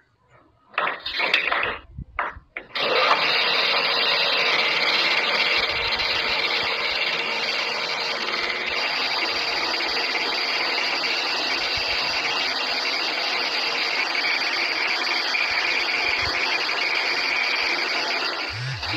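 A power tool running on a rusty steel bolt: a few short bursts, then running steadily with a faint high whine.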